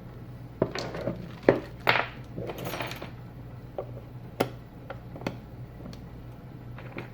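Small objects being handled on a workbench: a run of sharp clicks and knocks with a short scraping rustle in the middle, over a steady low hum.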